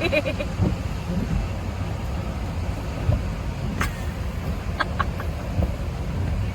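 Steady low rumble of a vehicle, heard from inside its cabin, with a few short faint clicks in the second half.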